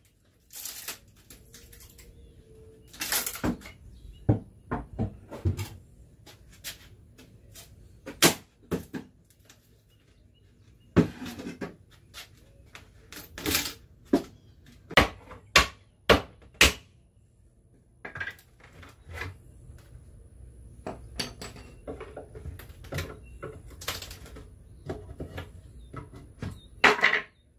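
Sharp, irregular wooden knocks and clatters as solid oak furniture panels are pried and pulled apart by hand and with a flathead screwdriver, the nailed joints giving way.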